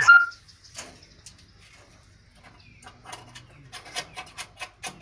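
Lovebirds calling: a short sharp chirp at the start, then near the end a quick run of harsh, scratchy chattering calls, about four or five a second.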